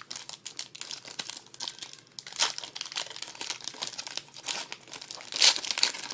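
2012 Panini Prestige card pack wrappers crinkling and tearing as packs are opened, with louder crackles about two and a half seconds in and near the end.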